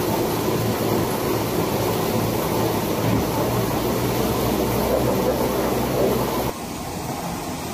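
Veneer clipper running, its conveyor rollers and belts carrying a veneer sheet through with a steady mechanical noise and low hum. The noise drops abruptly to a quieter level near the end.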